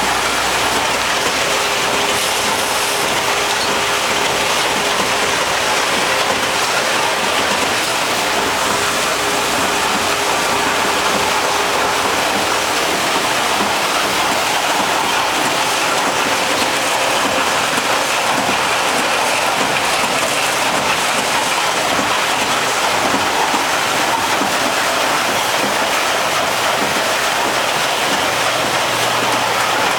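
Automated packaging line running: a steady, dense rattling hiss of small parts tumbling through a hopper, with conveyors and machinery running underneath.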